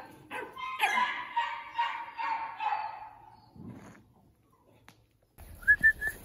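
Young border collie whining and yelping for about three seconds, then fading out. Near the end come three short high chirps.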